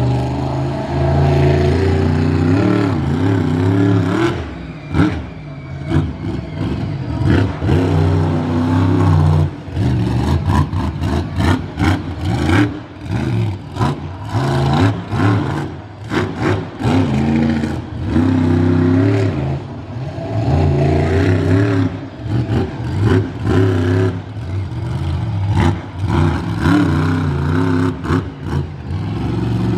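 Monster truck engine revving up and down over and over as the truck circles and spins on asphalt. In the middle stretch the throttle is blipped in short choppy bursts, with clattering knocks.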